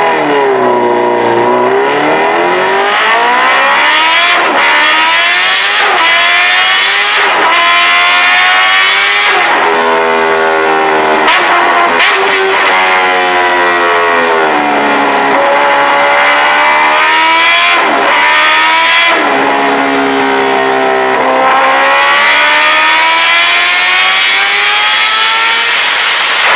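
Kawasaki Ninja H2R's supercharged 998 cc inline-four running hard on a dyno, loud throughout. The revs climb in long rising sweeps and fall sharply, again and again.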